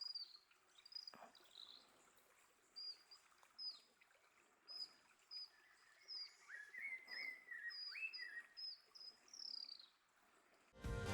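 Birds calling faintly: short, high chirps that slide downward, repeated every half second or so, and in the middle a second, lower series of quick notes.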